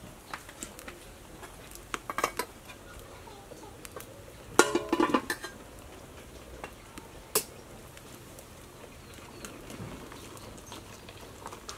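Clinks and knocks of a large metal cooking pot and its lid, with one loud ringing clatter about halfway through as the lid is lifted off.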